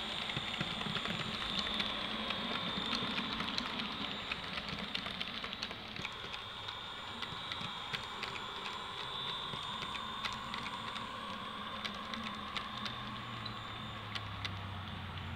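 OO gauge model train running on the layout, its wheels clicking irregularly over the track with a steady high motor whine. A low hum comes in near the end.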